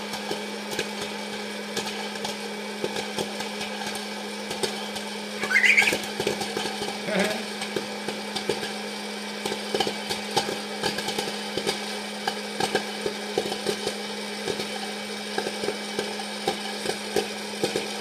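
Electric hot-air popcorn popper running with a steady motor hum, while kernels pop and popped corn drops out of its chute into a wok in a stream of irregular small clicks.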